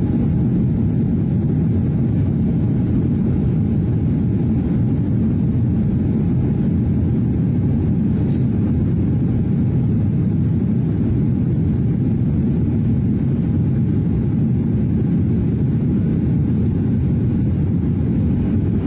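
Airliner cabin noise during the rollout after landing: a loud, steady, low rumble of the plane rolling along the runway, heard from inside the cabin.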